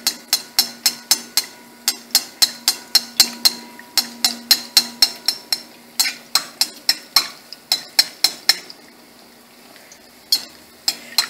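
Perforated metal skimmer clinking against a metal wok about three times a second as hot oil is splashed over malpua batter frying in it to make it puff up, over a low frying sizzle. The clinking stops about three-quarters of the way through, leaving the sizzle, then a few clinks come near the end.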